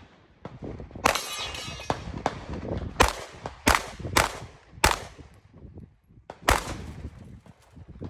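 Glock 17 9mm pistol fired in a string of about six shots at uneven intervals during a pistol match stage. The first shot is followed by a ringing metallic tone, like a steel target being hit.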